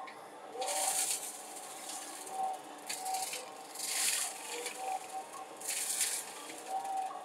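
Excavator-mounted brush mower cutting into brush: four short bursts of high hissing noise about one to two seconds apart, over a faint steady whine.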